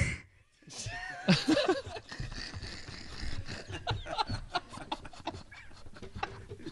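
People snickering and laughing after a brief hush about half a second in.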